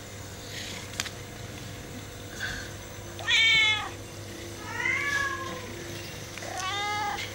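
A cat meowing three times, the first call the loudest and the second rising and falling in pitch; a faint click about a second in.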